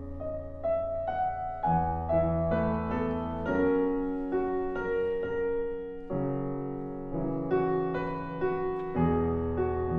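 Solo piano playing a slow classical passage, chords changing about every half second over held low bass notes: the piano part of a contemporary art song for mezzo-soprano and piano, before the voice comes in.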